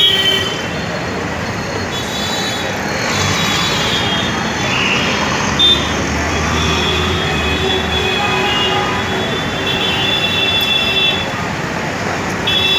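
Busy street traffic with vehicle horns honking every so often over the steady noise of engines and tyres; the longest honk comes about ten seconds in, with a deeper engine rumble of a heavier vehicle a few seconds before it.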